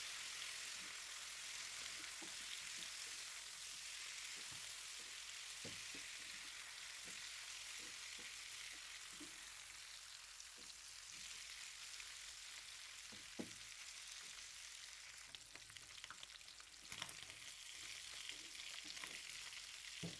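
Boiled beef chunks sizzling in ghee in a frying pan, with a steady hiss. Scattered clicks and scrapes of a spatula come as it is stirred, more of them near the end.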